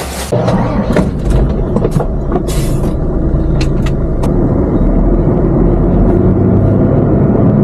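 Heavy truck's diesel engine running steadily, heard from inside the sleeper cab as the truck drives off, slowly getting louder. A few sharp clicks sound in the first few seconds, with a short air hiss about two and a half seconds in.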